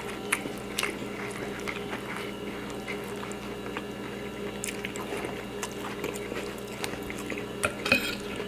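Chewing and eating sounds with scattered small clicks of food and dishes, over a steady low hum.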